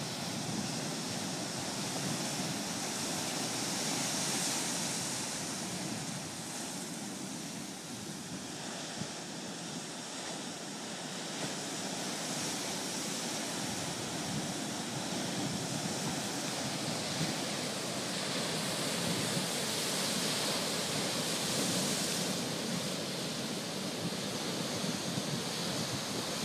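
Ocean surf: waves breaking and washing in a steady hiss that swells now and again as sets come through.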